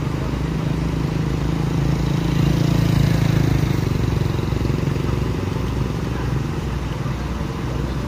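Heavy truck engine running steadily, growing louder about two seconds in and easing back after about five seconds, as the recovery truck pulls the overturned tanker.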